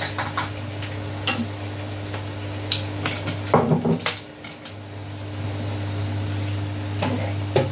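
Scattered clinks and knocks of jars, bottles and utensils being picked up and set down on a kitchen counter, over a steady low hum.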